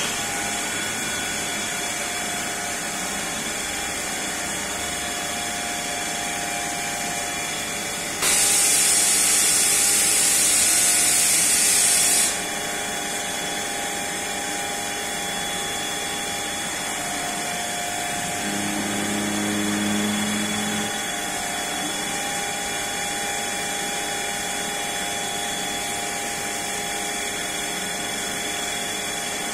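Awea BM-1020 CNC machining center running with a steady hum and a few steady whining tones. About eight seconds in, a loud rushing hiss cuts in for about four seconds and stops abruptly. Later, a lower drone swells for a few seconds and then drops away.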